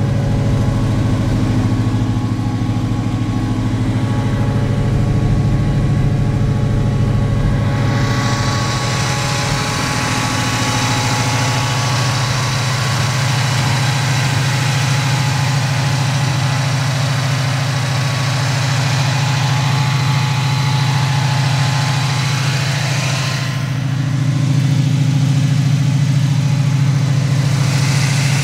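GM Performance Parts 350 cubic-inch H.O. crate small-block V8 idling steadily, with no revs. About eight seconds in, a brighter hiss and a steady whine join the engine note, and they drop away about five seconds before the end.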